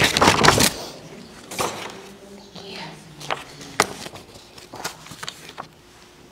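Handling noise near a podium microphone: a loud burst of rustling, then scattered sharp clicks and knocks.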